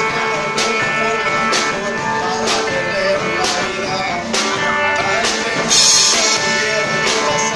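Rock band playing: guitar over drums, with a steady beat of about one hit a second and a louder burst of hiss near six seconds in.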